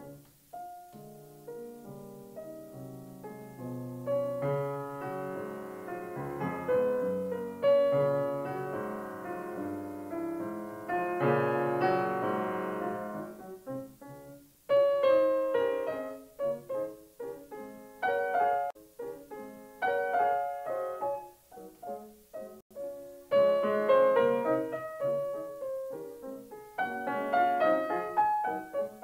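Piano music, a run of struck notes and chords in phrases, with a brief pause about halfway through and another later on.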